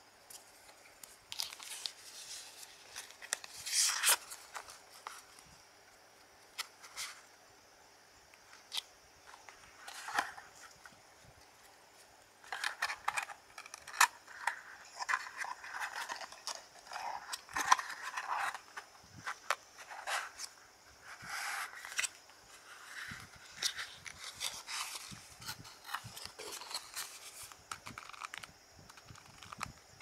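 Paper playing cards being handled close to the microphone: cards slid, tapped and squared into the deck, giving irregular crisp clicks and papery scraping, busiest around the middle. Near the end the cardboard card box is handled.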